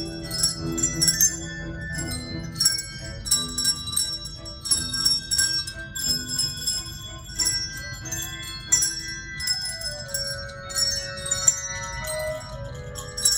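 A children's handbell choir playing a melody: struck bell notes ringing on and overlapping one another, several sounding together as chords.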